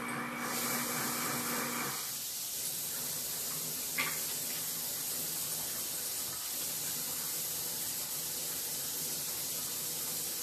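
Kitchen tap running steadily as hands are washed under it, a hiss that starts just under a second in. A steady hum stops about two seconds in, and there is one sharp click about four seconds in.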